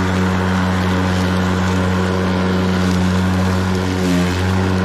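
Ryobi 40V brushless cordless lawn mower running under load while mowing grass. Its motor and blade make a steady hum, with a brief change in tone about four seconds in.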